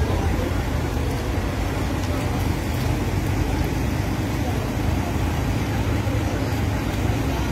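Steady low rumble of a Toyota HiAce van's engine as the van creeps through floodwater close by.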